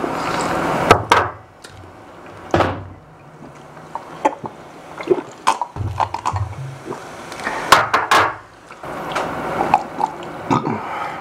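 Mealtime table sounds: scattered sharp clicks and knocks of glassware and dishes, with drinking sips and a few brief murmurs between.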